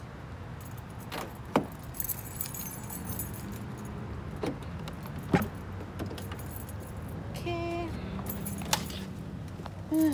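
A bunch of keys jangling in two spells, with several sharp clicks and knocks in between, while getting into a car.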